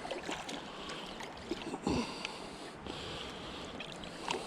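Stream water sloshing and splashing around a hooked brown trout being played in, with light clicks and one dull thump about two seconds in.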